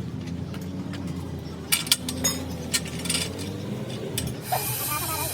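Metal clinking from tools and parts being handled, with several sharp clinks about two seconds in, over a steady low hum. A hiss starts near the end.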